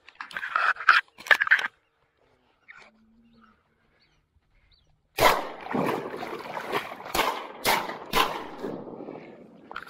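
Shotguns firing a quick volley at incoming ducks: a sudden loud blast about five seconds in, then several more shots over the next three seconds. A few short noises come in the first two seconds, before a quiet gap.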